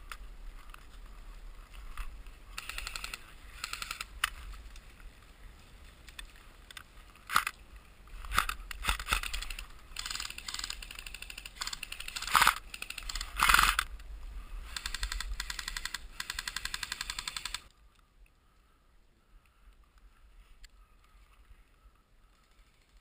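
Airsoft guns firing: scattered single shots and short clusters of shots, the loudest around 12 to 14 seconds in, then a rapid steady burst lasting about two and a half seconds. The sound cuts off suddenly about 17.5 seconds in, leaving only faint background.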